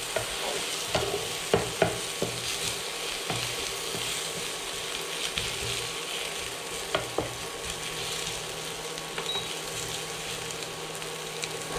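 Onion and tomato masala sizzling in a nonstick frying pan while a spatula stirs and scrapes through it, with a few sharp clicks of the spatula against the pan. The tomatoes are cooking down into the masala.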